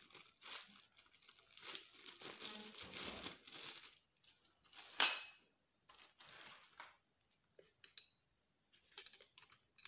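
Plastic wrapping crinkling and rustling as a drill's chuck key is unwrapped. About halfway there is a single sharp click, then a few light metallic clicks near the end as the key is handled at the keyed chuck.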